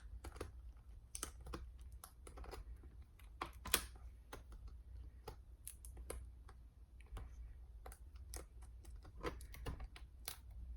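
Faint, irregular small clicks and taps of fingers and plastic on a Dell Inspiron 3180 laptop as the display cable connector is worked onto the back of a replacement screen, with one sharper click about four seconds in.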